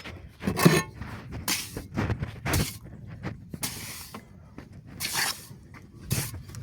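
Clay bricks being handled, with irregular clattering knocks and short scrapes as they knock against each other.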